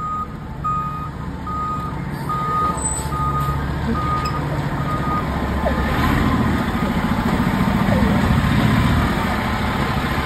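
Fire engine reversing: its back-up alarm beeps steadily about one and a half times a second over the truck's low engine rumble. The beeping stops about five seconds in, and the engine grows louder as the truck backs in.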